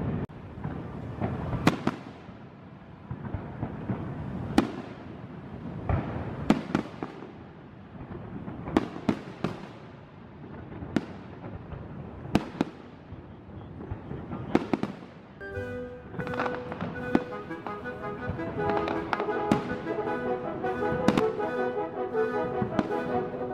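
Aerial fireworks shells bursting in a display, sharp bangs every second or two, each trailing off. About two-thirds of the way in, music starts under the continuing bangs.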